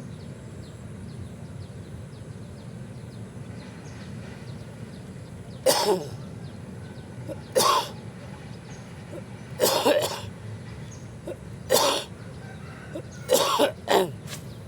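A person coughing: about six loud, short coughs roughly two seconds apart, starting about six seconds in, the last two close together.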